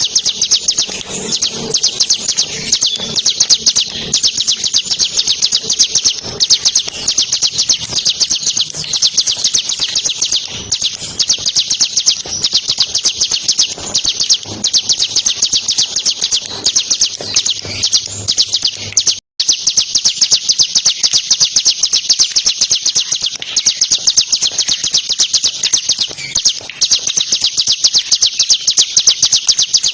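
Bar-winged prinia (ciblek) singing a long, very rapid, high-pitched trilled song with notes packed closely together. The song cuts out for an instant about two-thirds of the way through, then carries on.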